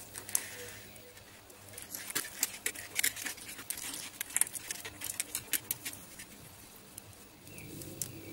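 Black plastic spiral cable wrap being twisted by hand around a bundle of thin motor-cable wires: a run of quick, light clicks and rustles, busiest in the middle.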